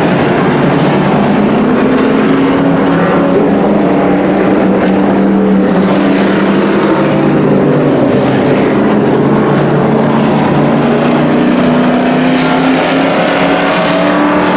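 A field of dirt-track race trucks running laps together, several engines at speed overlapping in one loud, steady drone whose pitch slowly rises and falls as they go around the oval.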